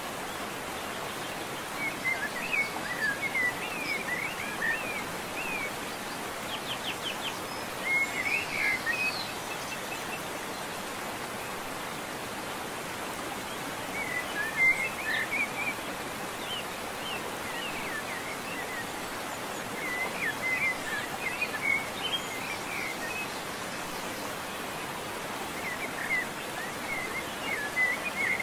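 Steady outdoor hiss with a bird singing short bursts of chirps every five or six seconds.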